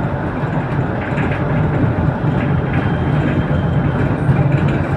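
Bus in motion heard from inside the cabin: a steady drone of its engine together with tyre and road noise.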